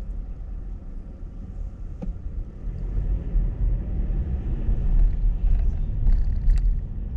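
Low, steady rumble of road and engine noise heard inside a moving car's cabin, growing louder about halfway through.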